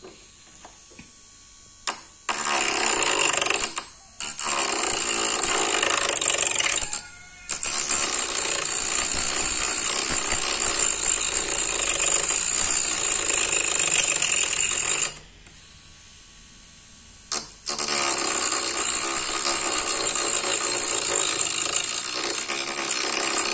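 Homemade mini rotary tool, a small DC motor driving a thin cutting disc, running at high speed and cutting into a grey plastic pipe: a high whine over a grinding rasp. The cutting starts about two seconds in, breaks off briefly twice, pauses for about two seconds after fifteen seconds, then runs on.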